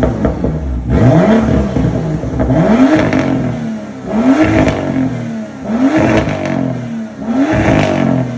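BMW M2's turbocharged straight-six blipped repeatedly in place: five quick revs, each rising and falling back, about one every second and a half, kept short of the rev limiter.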